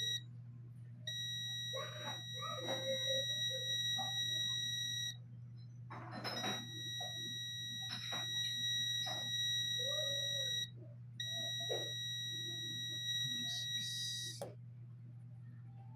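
Multimeter continuity beeper sounding a steady high-pitched beep in three long stretches of a few seconds each. It breaks off briefly twice and stops near the end as the probes leave the armature's commutator bars. The beep signals continuity, a reading under an ohm between the bars being probed. Light clicks of the probe tips and a low steady hum sit underneath.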